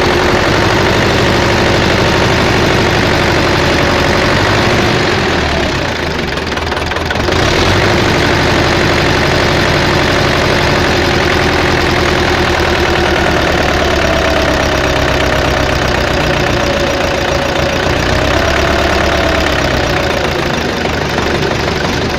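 Rebuilt tractor diesel engine running steadily, with a light clicking that the owner puts down to the fuel injection pump and the hood rattling. The engine drops in level briefly about six seconds in, then picks up again.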